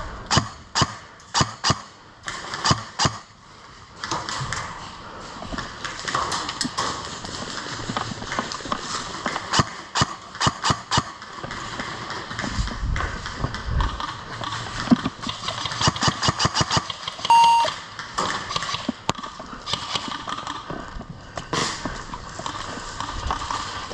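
Airsoft guns firing: single shots a fraction of a second apart, then a fast full-auto burst of about ten shots a second. A short electronic beep sounds once, just after the burst.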